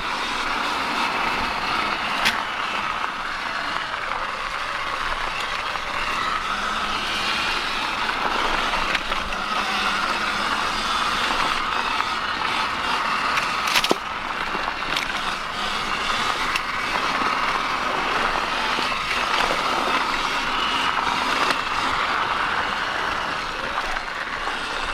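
Sur-Ron X electric dirt bike riding along a dirt trail: a steady whine from the electric motor and chain over tyre and wind noise, rising and falling a little with speed. There are two sharp knocks, one about two seconds in and one about halfway through.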